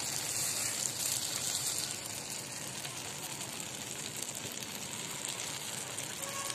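Shampoo frying in a pan of boiling oil: a steady crackling sizzle, a little louder for the first two seconds.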